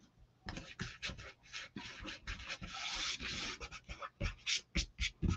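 Blue painter's tape being pulled from the roll, torn into strips and pressed down by hand onto a silk-screen transfer on a canvas tote: a run of short crackling tears and rubs, with a few sharper knocks near the end.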